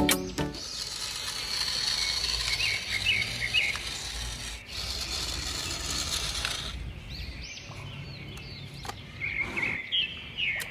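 Small birds chirping over a steady whirring, rushing noise that cuts off abruptly about two-thirds of the way through; after it stops, the chirps carry on over a quieter background.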